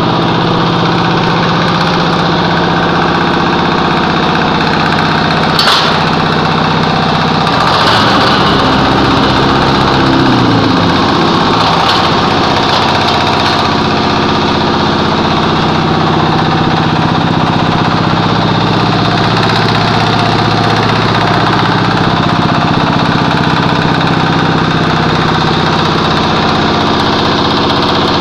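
Single-cylinder diesel generator set running steadily, powering a small concrete hollow-block making machine. About six seconds in there is a sharp click. From about eight to ten seconds in, the machine's vibrator motor runs louder, then winds down.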